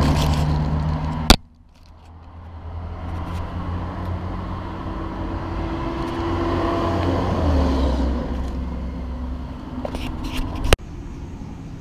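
Steady motor-vehicle engine noise that cuts off with a sharp click about a second in. The engine noise then swells gradually over several seconds and eases. Another sharp click near the end drops it away.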